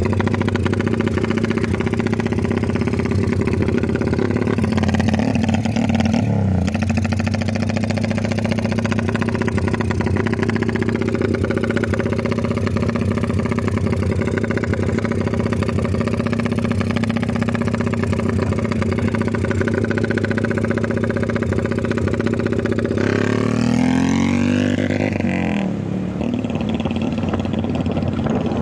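Old Honda motorcycle with a loud aftermarket exhaust running at steady revs, an even, deep exhaust note of the kind likened to a helicopter. Near the end the pitch sweeps down and back up as the bike pulls away.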